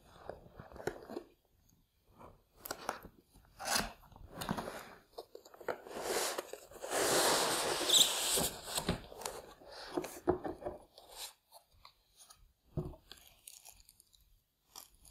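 Cardboard model box and foam packing being handled and pulled apart: scattered scrapes, creaks and light knocks, with a long rasping slide of about two seconds midway.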